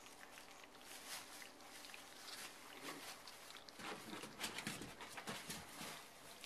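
English bulldog puppies lapping and smacking at soft food in a shared pan, with crackly rustling of shredded-paper bedding under their feet. Soft puppy grunts and snuffles come through louder between about four and six seconds in.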